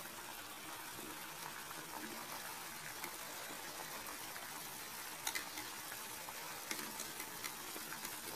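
Hot-water bath on the stove hissing faintly and steadily around a tin can of melting candle wax and oil. A metal fork stirs the wax and clicks against the can now and then, twice in quick succession about five seconds in.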